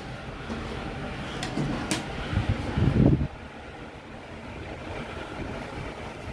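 Old passenger lift starting off: a few sharp clicks, a loud low rumble about two to three seconds in, then the steady hum of the car travelling.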